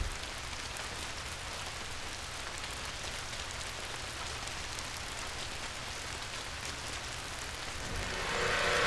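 Steady rain-like hiss with faint pattering ticks and a low hum underneath, growing louder near the end.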